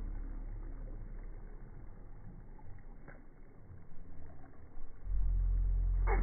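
Deep, slowed-down rumble from slow-motion playback: wind and beach noise dragged far down in pitch, swelling louder about five seconds in, with a brief falling sweep just before the end.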